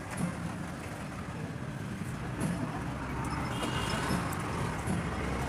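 Steady rumble of road traffic, growing a little louder about halfway through as a vehicle passes.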